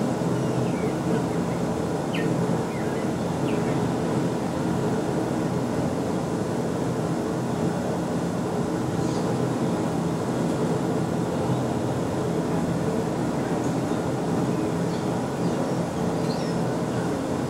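Steady, low, engine-like hum with an even drone and no change in speed, with a few faint, short high chirps over it.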